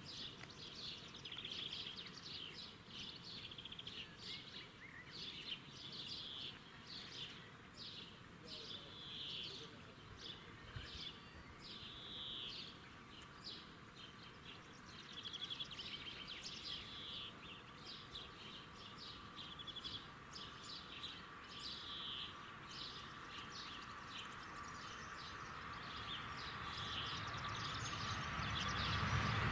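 Birds singing in short repeated phrases over faint outdoor background noise. Near the end an approaching train grows steadily louder, with a faint steady whine.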